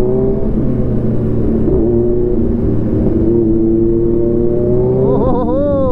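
Sport motorcycle engine heard from the rider's seat while under way. Its note holds steady and slowly climbs as the bike gathers speed, then briefly rises and falls near the end.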